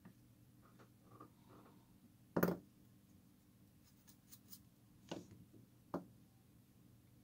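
Light clicks and taps of small tools and parts being handled on a work surface. The loudest knock comes about two and a half seconds in, followed by a quick run of sharp ticks around four seconds and two more knocks near five and six seconds.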